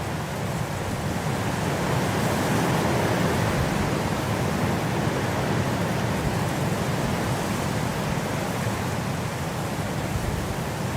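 Steady, even wind noise with no gusts or whistling, swelling slightly a couple of seconds in and easing back.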